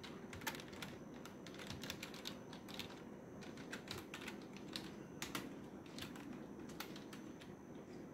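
Fingers typing on a computer keyboard: soft, irregular key clicks as a name is typed in.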